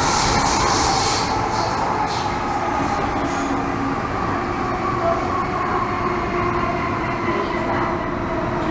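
An MTR M-train metro car heard from inside while running on the line. The wheels and running gear make a steady rumble, with a few faint steady tones above it, and a high hiss dies away about a second in.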